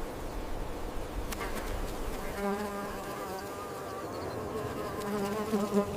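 A flying insect buzzing close by. The buzz comes in about two and a half seconds in, wavering slightly in pitch and growing louder near the end, over a low background noise.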